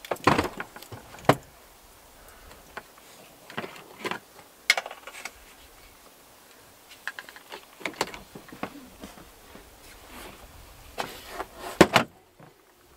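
Handling noises of a road bike being strapped upright against the inside wall of a minivan with a bungee cord: scattered clicks, knocks and light rattles of the bike and the cord's hooks against the van's trim. The loudest knocks come at the very start and about twelve seconds in.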